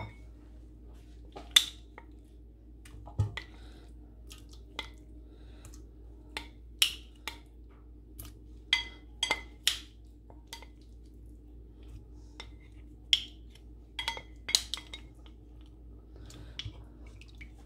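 Kitchen tongs clicking and knocking against a stainless steel pot as raw chicken pieces are placed into the water in it: about twenty sharp, irregular clicks and clinks, some ringing briefly, over a steady low hum.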